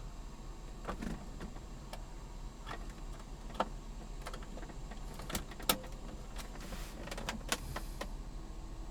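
Scattered light clicks and taps of hard plastic being handled inside a car's dashboard console, about a dozen over several seconds, the sharpest a little past the middle, over a low steady hum.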